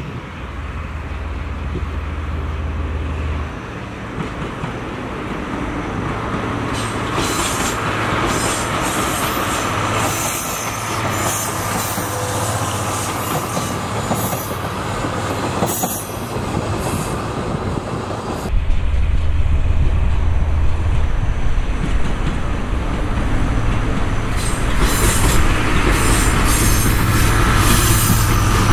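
The Okuizumo Orochi trolley train passing close by, hauled by its DE15 diesel-hydraulic locomotive: a steady low engine drone with the clack of wheels over rail joints and a faint wheel squeal. The engine drone grows louder in the last third as the locomotive comes past.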